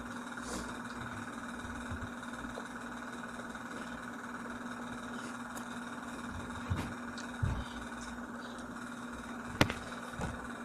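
Quiet room tone: a steady electrical hum with a few soft knocks in the second half and one sharp click near the end.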